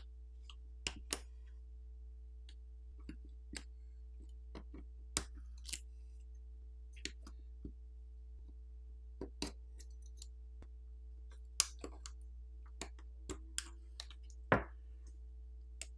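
Scattered small clicks and taps of tools and parts during a smartphone disassembly, roughly twenty sharp ticks at irregular intervals over a faint steady hum.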